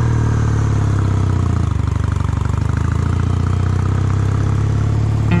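Kawasaki W800's air-cooled parallel-twin engine idling steadily.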